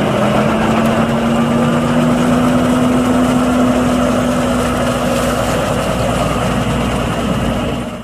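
Fendt Vario 818 tractor's diesel engine running steadily as the tractor drives off, a constant engine hum that rises slightly in pitch over the first few seconds and then holds. It fades and cuts off at the very end.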